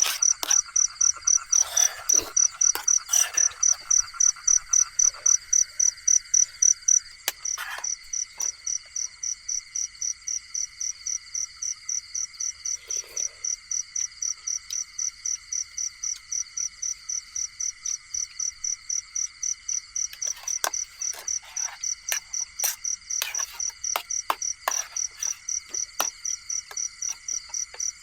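Night chorus of insects and frogs. A shrill insect call pulses about two to three times a second over a steady lower trilling, with scattered sharp clicks. The pulsing is louder for the first seven seconds or so, then steadies.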